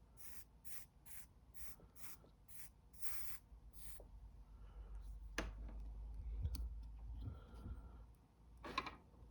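A run of about nine quick rubbing strokes, roughly two a second, then low handling rumble with scattered knocks and a sharper clatter near the end.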